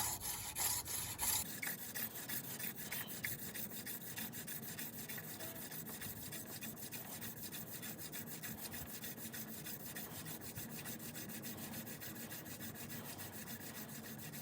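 Hand-drill spindle of horseweed spun back and forth between the palms, its tip rubbing in the end grain of a very hard wooden fireboard: a steady, rhythmic dry rubbing of slow 'floating' strokes that build heat toward an ember. It is a little louder for the first second or so.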